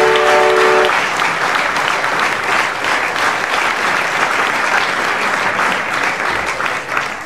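Audience applauding, slowly dying down toward the end. Over the first second a held chord of several notes sounds together, then cuts off.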